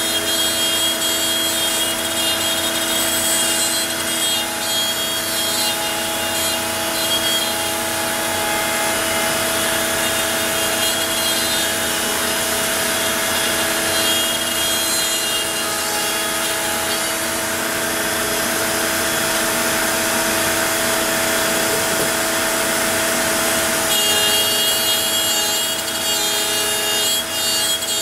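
CNC router spindle running at a steady speed while its bit cuts the workpiece: an even motor whine over a constant cutting hiss.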